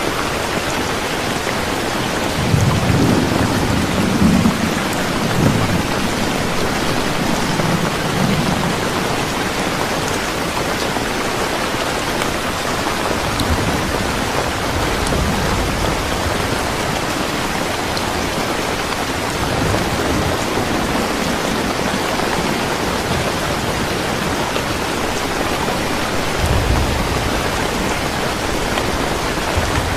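Steady rain falling, with low thunder rumbling a few seconds in and again near the end.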